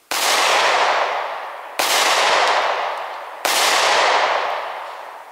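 Three 9mm pistol shots, about 1.7 seconds apart, each trailing off slowly.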